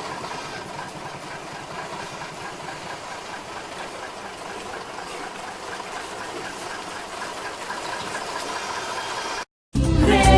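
An engine idling steadily, with a faint regular pulse in its sound. It cuts off suddenly near the end, and upbeat salsa music begins.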